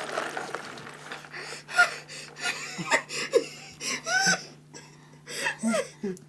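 A woman gasping, whimpering and laughing in short breathy bursts just after her face has been dunked in a basin of ice-cold water.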